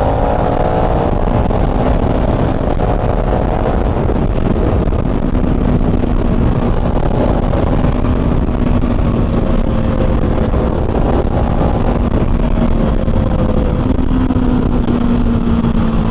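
KTM Duke 390's single-cylinder engine running steadily while riding, its pitch drifting gently up and down, over a dense low rumble.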